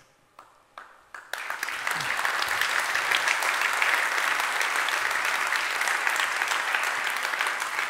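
Audience applauding. A few scattered claps in the first second, then full, steady applause from about a second in.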